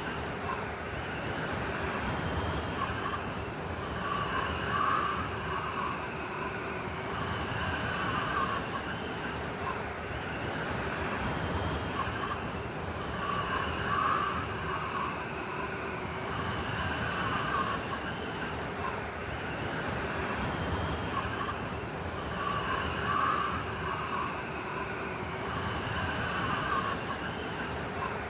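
Blizzard wind blowing steadily, with whistling gusts that rise and fall and come back about every nine seconds.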